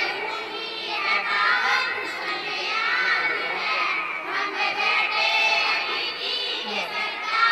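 A group of schoolgirls singing together into a microphone, several young voices at once.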